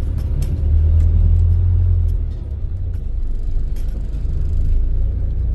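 Low steady rumble of a car driving, with a few faint light clicks.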